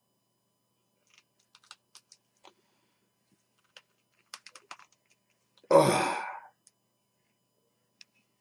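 Faint scattered clicks and ticks of plastic figure parts being handled and fitted together, then a loud sigh a little past halfway.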